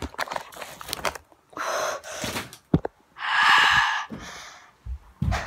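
A boy gasping and huffing hard through an open mouth in several loud breaths, the longest about three seconds in, from the burn of spicy hot Cheetos. There are a few handling clicks on the phone.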